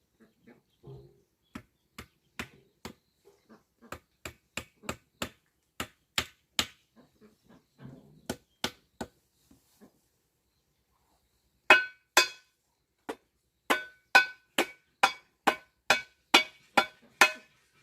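Repeated sharp blows of a hand tool, about two to three a second, lighter at first and louder in the second half, where many strikes ring with a metallic tone.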